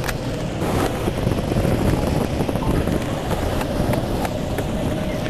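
Wind rumble and handling noise on a moving handheld camera's microphone, with a few scattered footfalls of someone running.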